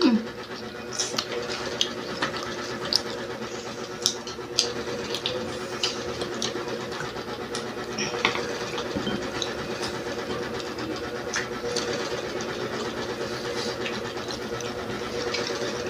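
Close-up eating sounds: irregular crisp clicks and crunches of food being chewed, roughly one a second, over a steady background hum.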